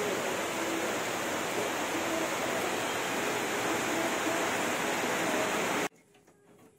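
Steady loud rushing noise, like running water or heavy rain, that cuts off abruptly about six seconds in.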